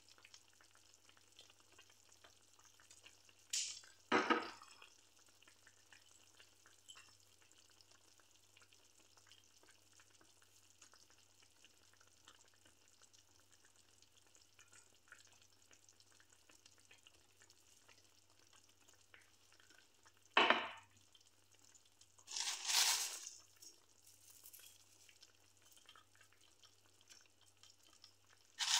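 Fish broth simmering in a pan: a faint, steady bubbling hiss. It is broken by a few short, louder noises: two about four seconds in, two around twenty to twenty-three seconds in, and one near the end.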